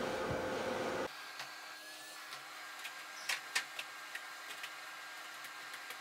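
Canister vacuum cleaner running steadily on a hard floor, then the sound drops abruptly about a second in to a much quieter, thin hum with scattered clicks and taps.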